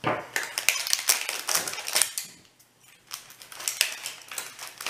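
Plastic shrink wrap crinkling and crackling as it is handled and cut with scissors, in quick irregular clicks with a short lull a little over two seconds in.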